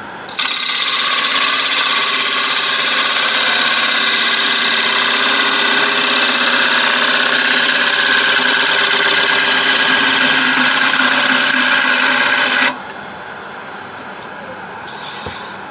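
Bowl gouge cutting inside a spinning acacia bowl on a wood lathe, a loud steady cutting hiss as the inner wall is thinned. The cut stops suddenly about three-quarters of the way through and it goes much quieter.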